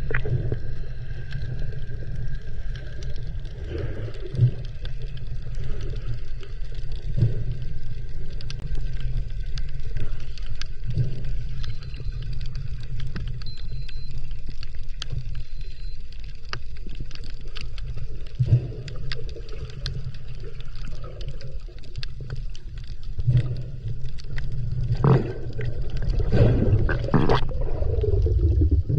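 Underwater ambience: a steady low rumble of moving water with scattered clicks and crackles, and a few louder surges near the end.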